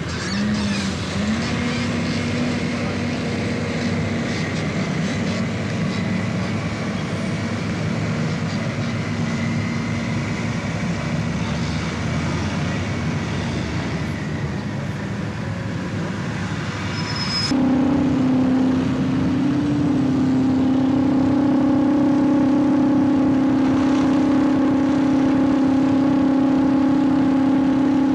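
Engines of heavy earthmoving machinery running steadily. About two-thirds of the way through, the drone changes abruptly to a louder, steadier hum at a slightly higher pitch.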